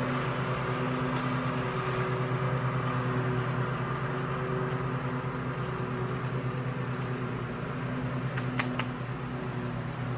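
A steady electric motor hum, like a fan or other running appliance, with a few light clicks of plastic parts being handled near the end.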